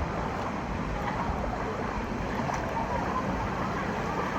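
Steady rush of pool water, with no single event standing out.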